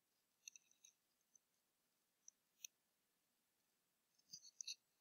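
Near silence, with a few faint, short computer-mouse clicks scattered through it and a small cluster of them near the end.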